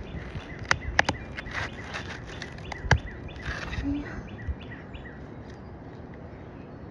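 A few sharp clicks and crackles, about a second in and again near three seconds, from asphalt three-tab shingles being pried slowly up off their sealant strips, with birds chirping faintly in the background.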